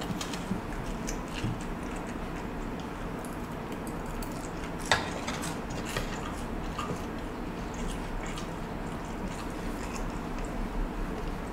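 Fork and spoon clicking and scraping against a plate as fried rice is scooped up, with soft chewing; one sharper clink about five seconds in.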